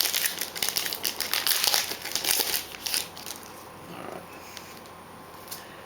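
Crinkling of a baseball card pack's wrapper as it is torn open and handled. The crinkling is dense for about the first three seconds, then dies down.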